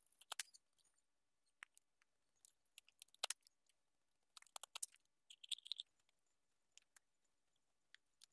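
Near silence broken by faint, scattered clicks and taps of rubber-tapping latex cups being handled as the set latex lumps are pulled out and the cups set down, with a brief higher squeak about five and a half seconds in.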